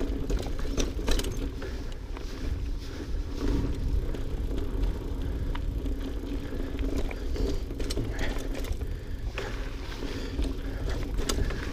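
GT Aggressor Pro mountain bike ridden along a dirt trail: wind rumbling on the microphone and tyres rolling over the ground, with frequent short clicks and knocks from the bike rattling over bumps.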